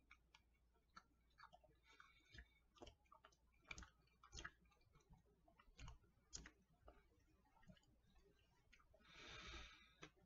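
Faint mouth clicks and smacks from chewing a soft fig bar, irregular and scattered, with a soft hiss about a second long near the end.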